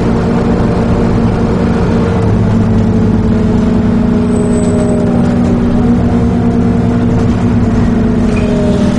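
Scania OmniCity single-deck bus under way, heard from inside the cabin: a steady diesel engine drone with road noise and a whine that drifts slightly in pitch. A brief high squeak comes about halfway through.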